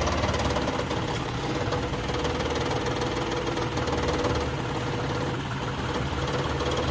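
John Deere tractor's diesel engine running steadily at low revs, with the typical diesel knock.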